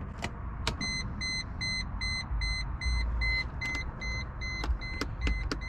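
Mercedes-Benz E55 AMG's warning chime beeping: a steady run of short, high beeps, about three a second, with a few clicks mixed in.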